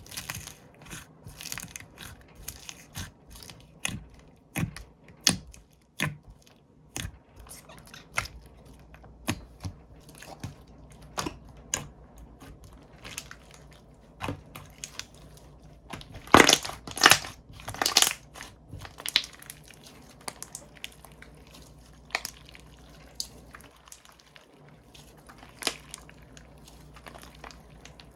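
Hands squishing, poking and stretching slime, making irregular sticky pops and crackles, with a run of louder pops a little past the middle.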